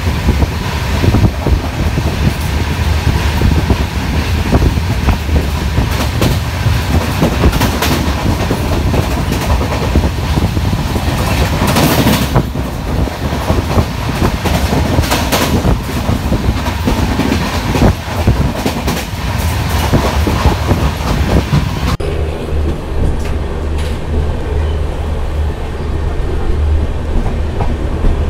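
Sleeper coach of an express train running at speed, heard from its open door: steady clickety-clack of the wheels over the rail joints with rushing air. About two-thirds of the way through, the sound drops abruptly to a quieter, lower rumble with a steady hum.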